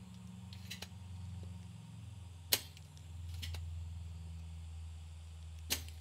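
Spring-loaded desoldering pump (solder sucker) firing twice, two sharp snaps about three seconds apart, as it sucks melted solder off the capacitor pads of a circuit board. Fainter clicks come about a second in, over a low steady hum.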